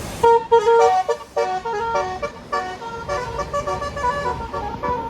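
Bus telolet horn (Basuri multi-tone horn) playing a quick tune of short, stepped notes; the first second is the loudest, then the melody goes on more quietly.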